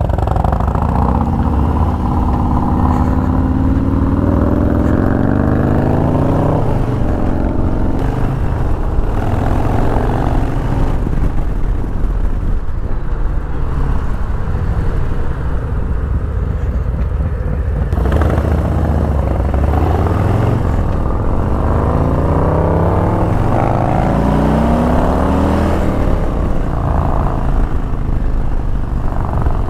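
Harley-Davidson Milwaukee-Eight V-twin motorcycles accelerating from a stop, the engine note rising through each gear and dropping back at every upshift, over a steady low rush of wind and road noise.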